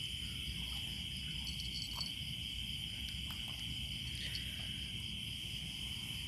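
Steady chorus of night insects, a continuous high-pitched buzz, over a low even rumble, with a few faint ticks.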